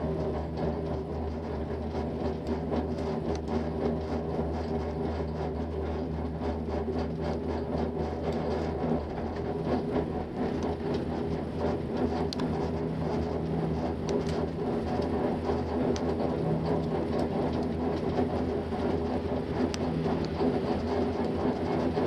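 Six-seat detachable gondola cabin running along its haul rope, a steady mechanical hum and rumble heard from inside the cabin, with a few faint clicks in the second half.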